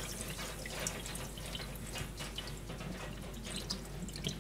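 Water dripping and trickling inside an opened drawer-type dishwasher, its wash interrupted, with many small faint ticks of drops.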